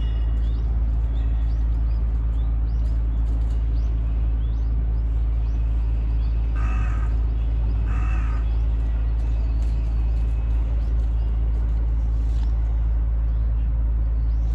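A crow cawing twice, about a second apart, over a steady low rumble. Faint high chirps in the first few seconds.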